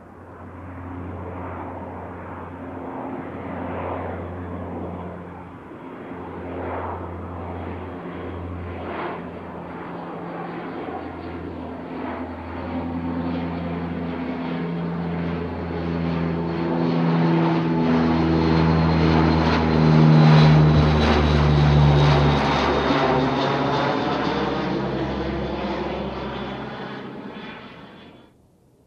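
C-2 Greyhound's twin Allison T56 turboprop engines flying past: a propeller drone that swells and dips, with a faint high turbine whine falling slightly in pitch. It grows louder to a peak about 20 seconds in, fades, and cuts off abruptly near the end.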